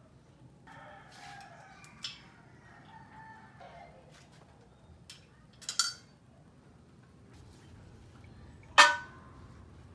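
A rooster crows for about three seconds, its call falling at the end. Metal clinks and clanks come from handling the steel parts of a homemade hydraulic press; the loudest is a sharp clank with a brief ring near the end.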